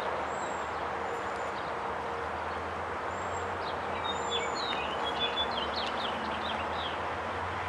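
Small birds chirping over the steady, low rumble of a distant pair of approaching EMD four-axle diesel locomotives, a GP38-3 and a GP39-2. The chirps come in scattered bunches through the middle of the stretch.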